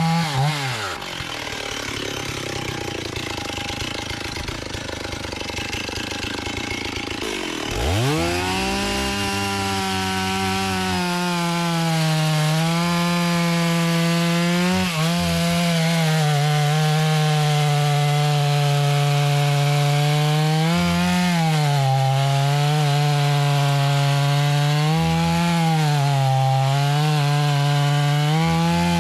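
Two-stroke chainsaw dropping off to a low, rough idle just after the start, then revving up about eight seconds in and running at full throttle for the rest, its pitch sagging briefly a few times as it cuts into the wood.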